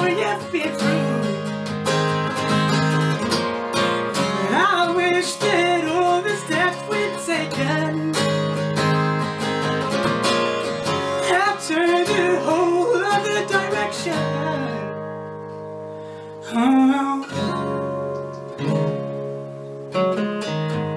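A man singing over strummed acoustic guitar. About two-thirds of the way through, the voice stops and the chords ring out and fade; a fresh strum then starts a quieter guitar passage.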